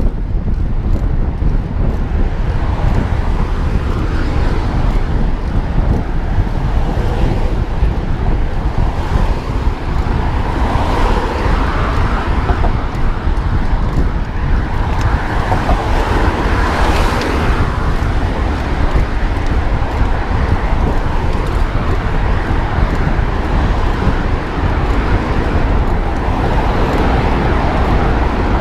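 Wind noise on the microphone of a bicycle moving at about 24 km/h, mixed with road traffic. The traffic noise swells twice around the middle as cars go by.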